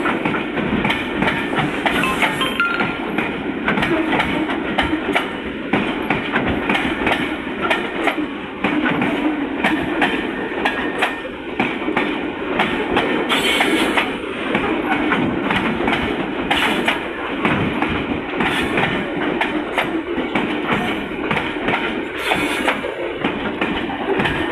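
Covered freight wagons of a slow-moving freight train rolling past close by: a steady rumble of steel wheels on rail, broken by frequent short clanks and clicks.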